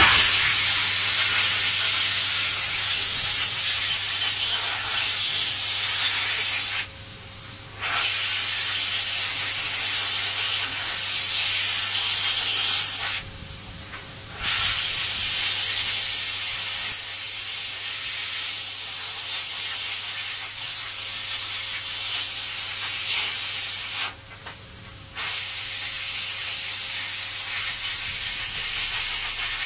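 A dryer blowing a steady hiss of air over wet clipper blades to dry them, with a motor hum underneath. The hiss drops away for about a second three times.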